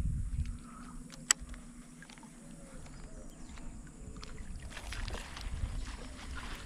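Quiet handling noise aboard a plastic kayak: low knocks and rumbling, with one sharp click about a second in.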